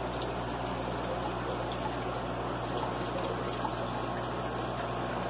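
Aquarium filter water trickling steadily, with a steady low pump hum underneath.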